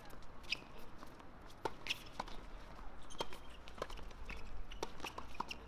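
Doubles tennis rally on an outdoor hard court: irregular sharp knocks of racket hits and ball bounces, mixed with players' footsteps on the court.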